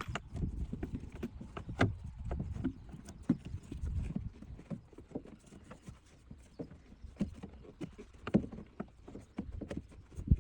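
Irregular clicks, taps and knocks of hands and tools working on car interior parts, with a few louder knocks.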